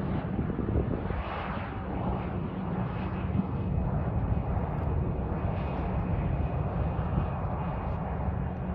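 Embraer ERJ-145LR regional jet on the ground, its two Rolls-Royce AE 3007 turbofans running: a steady jet rumble with a faint whine above it.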